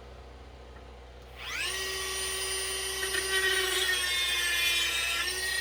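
Dremel rotary tool switched on about a second and a half in, its whine rising quickly to a steady high pitch, then running on with small shifts in tone as it works, one just after five seconds in.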